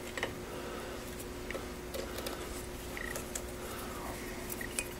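Faint clicks and scrapes of crimped spade connectors being handled and pushed onto the terminals of an electric mower motor's bridge rectifier, over a steady faint hum.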